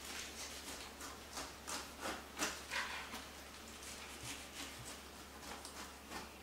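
Kitchen knife slicing down through pineapple rind in a series of short scraping strokes.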